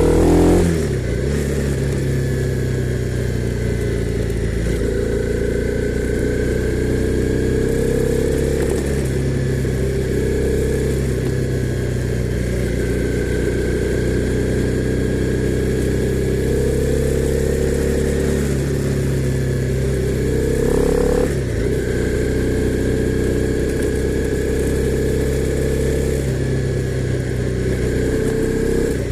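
Honda CB300R's single-cylinder engine running continuously, its pitch drifting gently up and down, with a brief dip and change of pitch about half a second in and again about 21 seconds in.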